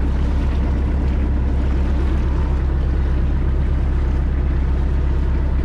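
Motorboat engine running steadily while the boat is under way: a deep, even drone.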